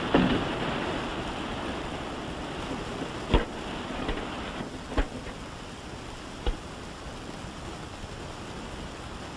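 Steady hiss that fades slightly, with three sharp clicks about a second and a half apart.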